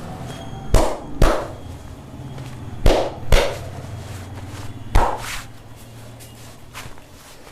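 Hands slapping the body during a massage: two quick pairs of sharp slaps about half a second apart, then a single slap about five seconds in, followed by a few lighter taps.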